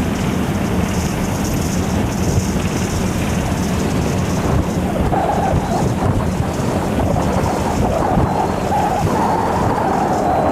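Wind buffeting the microphone over a steady low engine drone, with a higher hum joining about halfway through.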